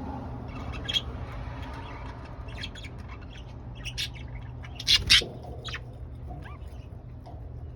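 Budgerigars giving scattered short, sharp chirps and calls. The loudest are a pair about five seconds in, over a steady low hum.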